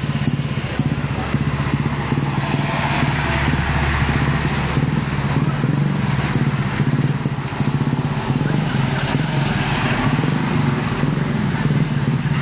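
Motor vehicle engines running close by, motorcycles and a truck, as a steady low hum with road noise over it.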